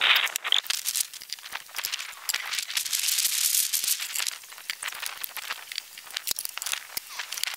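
Handling noise of equipment being set up: scattered clicks, knocks and rattles, with a stretch of rustling in the middle.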